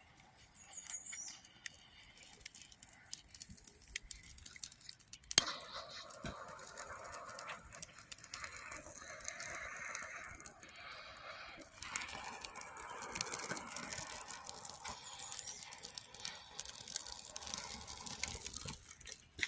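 Freshly lit wood fire crackling, still in flames and not yet burned down to coals, with scattered sharp pops and one loud pop about five seconds in, over a steady hiss that builds in the second half.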